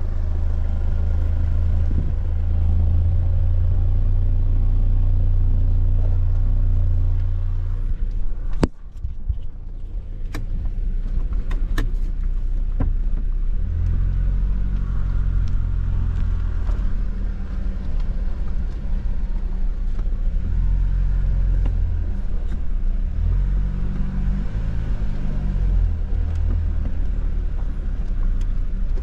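Four-wheel-drive vehicle's engine running steadily on a slow, steep descent, its note rising and falling as the revs change. A handful of sharp knocks come about a third of the way through.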